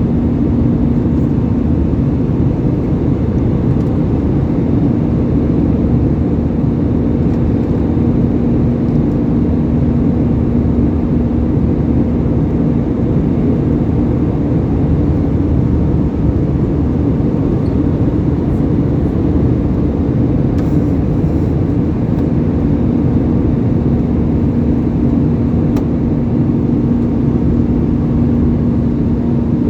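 Steady cabin noise of an Airbus A320 in flight: a constant low rumble of engines and airflow with a steady hum.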